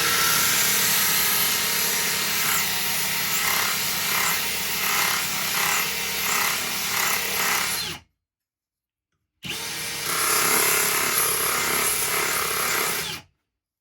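A drill spinning a Revivablade Pro diamond sharpening cutter, grinding the arced edge of an oscillating multi-tool blade that is rolled left and right against it. The grinding swells and fades about twice a second as the blade rocks. The drill stops about 8 seconds in and runs again for about four seconds shortly after.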